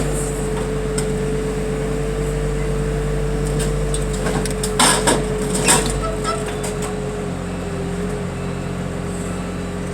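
Heavy machinery's engine running at a steady drone with a steady whine over it, and a few sharp metallic knocks about five seconds in as the van body is worked.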